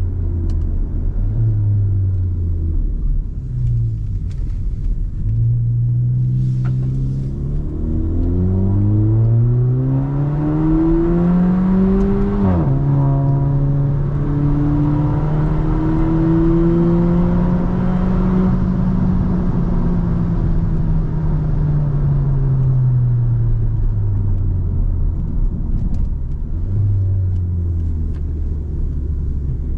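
Car engine and road rumble while driving. The engine pitch climbs steadily as the car accelerates, drops sharply about halfway through at a gear change, climbs gently again, then falls away as the car slows and settles low near the end.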